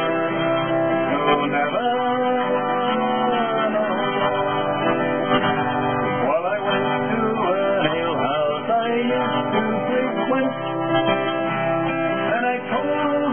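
A man singing a folk song while strumming an acoustic guitar.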